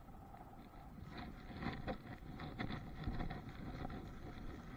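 A boat engine hums steadily, with irregular light clicks and rattles as the wet shrimp catch is handled.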